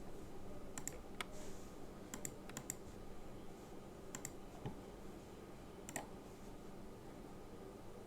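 Keystrokes on an Apex Pro TKL keyboard: a handful of separate key presses, single clicks and quick pairs spaced roughly a second apart with short pauses, rather than continuous typing.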